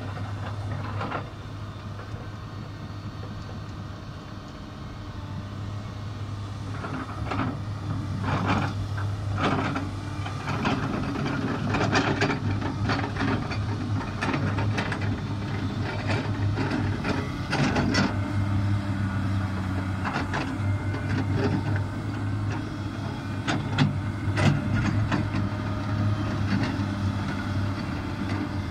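Komatsu PC300 hydraulic excavator's six-cylinder diesel engine running steadily, with irregular metallic clanks and knocks from the machine's tracks and bucket on rock. It grows louder about a quarter of the way in as the machine comes closer.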